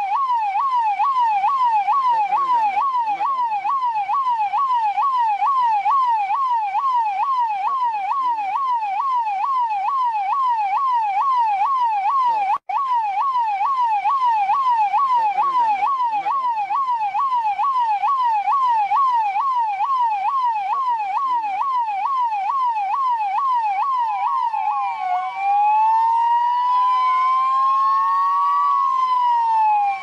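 Indian police siren in a fast yelp, its pitch sweeping up and down about two and a half times a second, cutting out for an instant about halfway through. Near the end it switches to a slower wail, two tones rising and falling out of step with each other.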